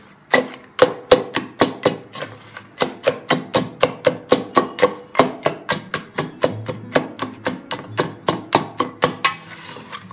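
Background music with a quick, steady plucked beat of about four or five notes a second.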